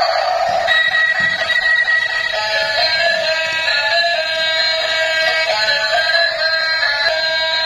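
Electronic music with a synthesized singing voice, a melody that sits high with hardly any bass.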